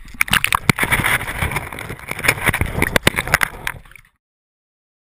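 Loud splashing and sloshing of water close to the microphone, mixed with sharp knocks and handling noise. It cuts off suddenly about four seconds in.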